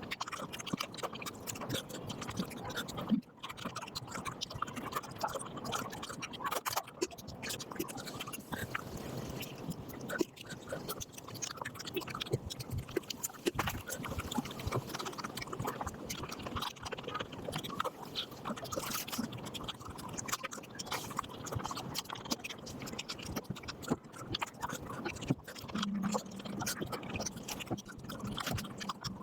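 Sped-up eating sounds: fast, continuous chewing with wet mouth clicks and smacks, packed tightly together by the fast playback. A low steady hum joins near the end.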